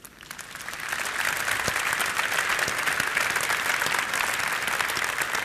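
Audience applauding: many hands clapping densely, building up over the first second and then holding steady.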